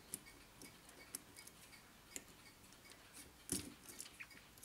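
Faint, scattered small metallic clicks and ticks as a braided metal fusee line is worked loose from its anchor hole in a brass mainspring barrel, by fingers and then with pliers, with a louder click about three and a half seconds in.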